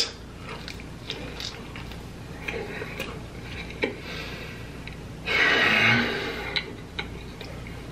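A person eating a cheese quesadilla: quiet chewing with scattered small mouth clicks, and a short breathy rush about five seconds in.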